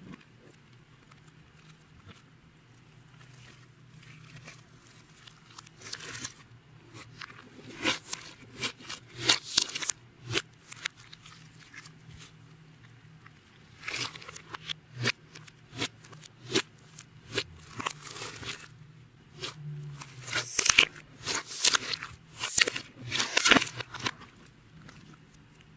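Clear slime being squished and kneaded by hand, giving bursts of wet crackling and clicking, with quieter pauses between the bursts.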